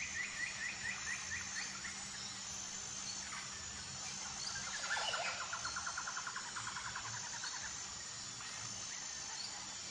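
Quiet background chirping: a rapid trill near the start and a longer trill from about five seconds in that begins with a falling sweep, over a faint steady low hum.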